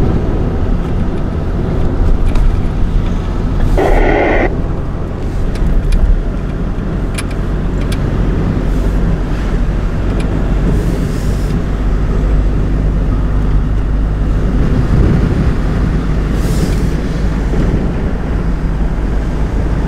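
Car driving at town speed, heard from inside the cabin: a steady low engine drone with tyre and road noise.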